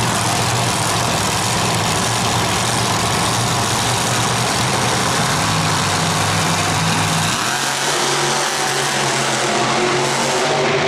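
Monster trucks' supercharged V8 engines running loudly at the start line, with a steady engine tone over a wash of arena noise. The tone shifts to a different pitch about seven and a half seconds in.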